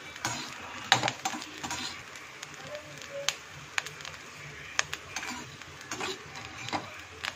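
Large sabudana pearls frying in ghee in an aluminium kadhai, crackling with scattered sharp pops while a perforated steel slotted spoon stirs and scrapes against the pan. The crackling is the sign that the pearls are not yet cooked through; it stops once they are done inside.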